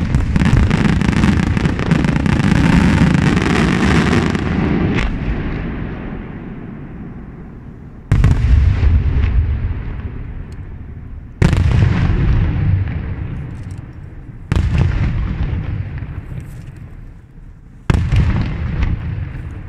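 Aerial fireworks going off: a dense volley of shell bursts and crackle for the first few seconds that fades away, then four single loud booms about three seconds apart, each dying away over a couple of seconds.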